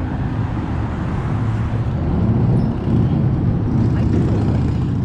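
Road traffic passing close by: a steady engine rumble, with wind buffeting the microphone.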